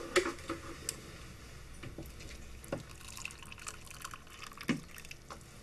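Quiet kitchen sounds of tea being made: faint trickling liquid with scattered light clicks and a couple of sharper knocks, cups and a spoon being handled on the counter.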